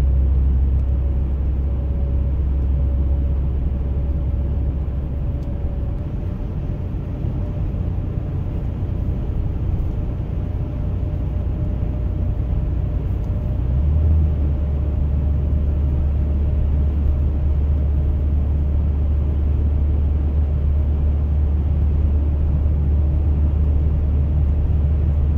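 Car driving at highway speed on a snowy road, heard as a steady low rumble of road and engine noise with a faint steady hum above it; the rumble shifts in level about six seconds in and again about fourteen seconds in.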